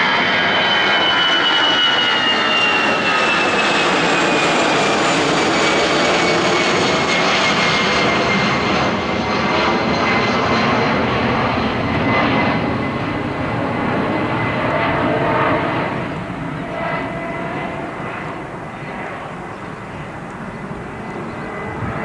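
An Airbus A319-111's twin CFM56-5B turbofans at climb power as the airliner passes overhead and flies away. It makes a steady roar with a high whine that slides down in pitch, and the sound fades over the last several seconds.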